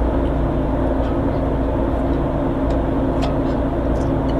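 A steady mechanical drone with a constant low hum.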